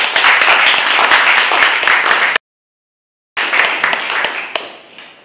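Audience applauding after a lecture, a dense patter of many hands clapping. About two and a half seconds in it drops out to dead silence for about a second, then returns and fades away.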